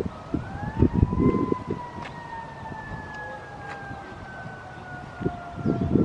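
An emergency-vehicle siren wailing: one tone that rises over the first second, then slowly falls. Low rumbles of wind on the microphone come about a second in and again near the end.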